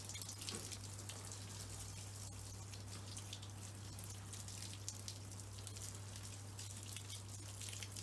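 Water from a garden hose spraying onto the leaves of a shrub: a steady hiss with many small spattering drips, over a steady low hum.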